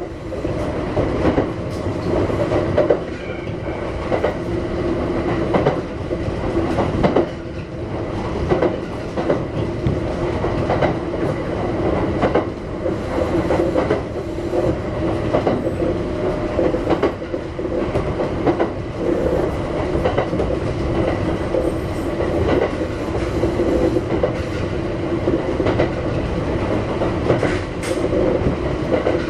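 Kintetsu 1430 series electric train running between stations, heard from inside the car: a steady rumble and motor hum, with repeated clicks as the wheels cross rail joints.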